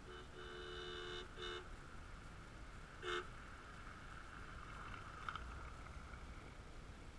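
Car horn honking: one long blast of about a second, a quick second blast, then another short blast about three seconds in. The car then passes, its running and tyre noise building and fading.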